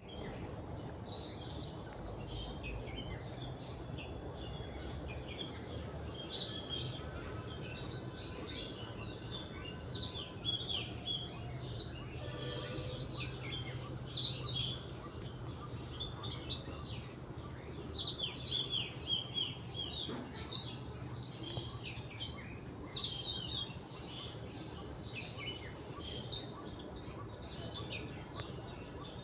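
Garden birds chirping and singing, a dense run of short, high chirps and trills from several birds, over a steady low hum.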